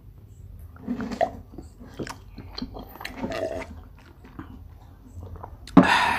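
Drinking water from a plastic cup: soft gulps, swallowing and mouth sounds, then a loud breathy exhale near the end.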